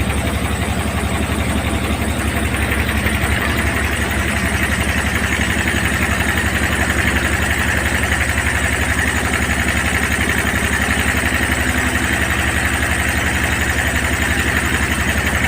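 A motor vehicle's engine idling steadily, with a low, even throb.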